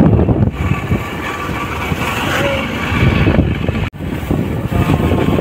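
Motorcycle riding along a road: a steady engine rumble mixed with wind noise on the microphone, with the sound dropping out for an instant about four seconds in.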